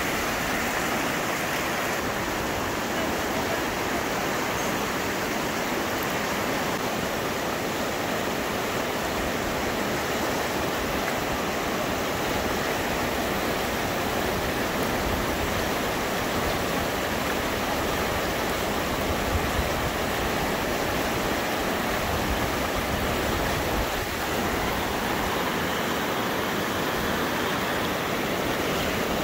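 A rocky mountain river rushing over boulders and rapids: a steady, unbroken rush of water.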